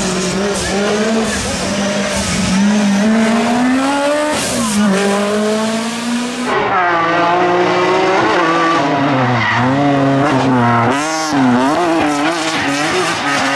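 Rally car engines at full throttle, the revs rising and falling again and again through gear changes and lifts. About six and a half seconds in, the sound cuts abruptly to a second car, a BMW M3 E30 rally car, its engine note swinging up and down quickly.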